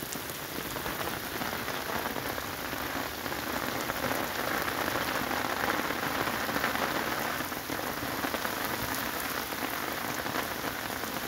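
Heavy rain falling steadily on a muddy yard with standing puddles: an even hiss of countless drops splashing, a little louder in the middle.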